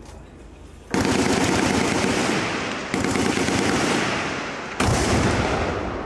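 Automatic machine-gun fire in long unbroken bursts, starting suddenly about a second in, with fresh loud onsets about three and five seconds in.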